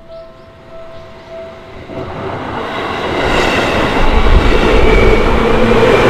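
Japanese level crossing's warning bell ringing in repeated pulses, then drowned out from about two seconds in by a Seibu Shinjuku Line commuter train running through the crossing, its wheel and track rumble swelling and loudest in the second half.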